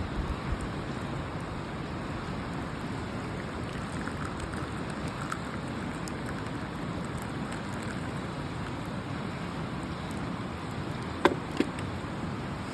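Steady rushing of river water, an even noise with no rhythm. Two sharp knocks a third of a second apart come near the end.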